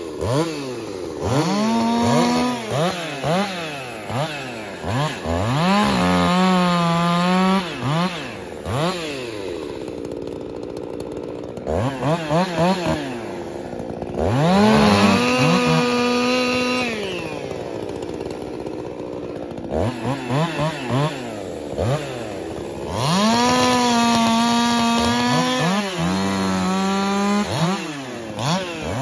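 Two two-stroke chainsaws blipping the throttle and cutting logs. The engine pitch rises and falls over and over, then holds high through three long cuts. Between cuts it drops back to a quieter idle.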